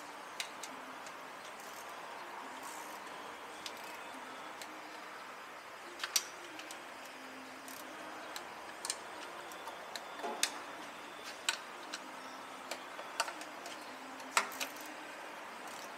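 Hand tools on a car's transmission pan: about a dozen sharp metallic clicks and taps at uneven intervals, the loudest about six seconds in and again near the end, over a steady background hum.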